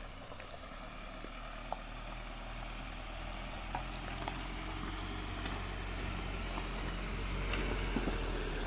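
Ford Endeavour SUV's diesel engine running slowly as it creeps closer over a rocky dirt track, growing steadily louder, with occasional clicks of loose stones under the tyres.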